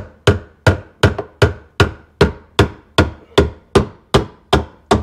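Hammer tapping steadily on a lug of a garbage disposal's metal mounting ring, about three sharp knocks a second. The ring is being driven to the left to release the disposal from the sink flange.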